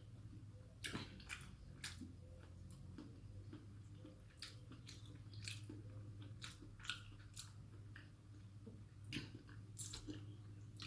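Faint, close-up eating sounds: a person chewing and biting food, with many small, irregular wet mouth clicks, over a steady low hum.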